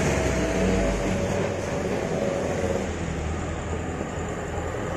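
Light diesel truck passing close by and pulling away, its engine and tyre noise fading over the first few seconds, leaving the steady noise of traffic approaching on the road.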